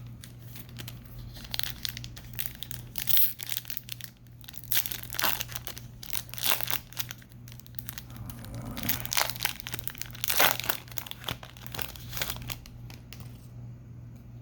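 Foil wrapper of a baseball card hobby pack being torn open and crinkled by hand, a long run of irregular crackles.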